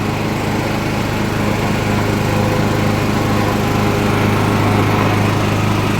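Wood chipper's small engine running steadily at an even speed.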